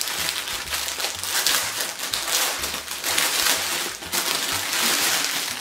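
Clear plastic garment bag crinkling and rustling continuously as it is pulled open and handled to take out a folded blouse.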